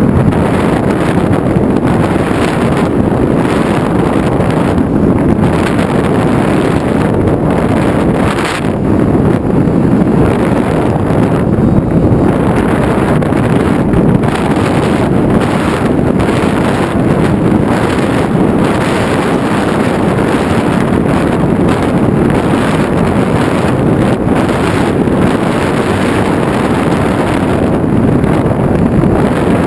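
Loud, steady wind rushing and buffeting over the microphone of a model aircraft flying FPV. It briefly eases about eight seconds in.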